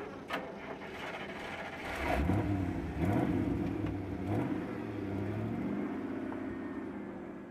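Engine of a lifted 4x4 pickup truck running, revved up and down several times about two seconds in, then running more steadily and fading toward the end.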